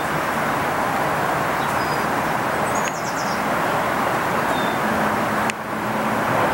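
Steady noise of road traffic, with a few faint, short, high bird chirps over it and a low steady tone for about a second and a half near the end.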